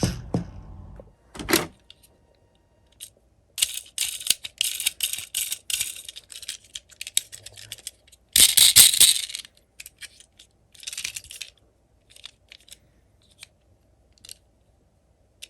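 Small die-cast metal toy cars clinking and clattering against one another and their container, in scattered clicks and short rattling bursts, the loudest burst about 8 to 9 seconds in.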